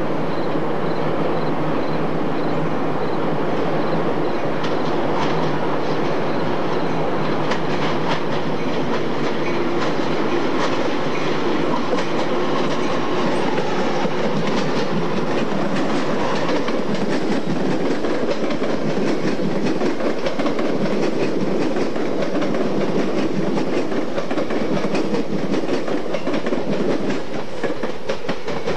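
Electric passenger trains rolling past on electrified track, a steady rumble with the wheels clicking over rail joints in irregular runs.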